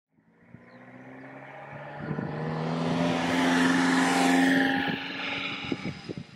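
A kei van's small engine and tyres passing close by and driving off along the road, growing louder to a peak about four seconds in and then fading as it pulls away.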